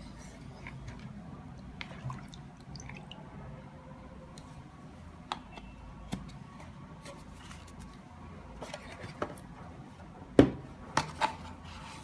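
Small clicks and taps from a plastic bottle humidifier being handled, with a sharp knock about ten seconds in and two lighter knocks just after, over a low steady hum.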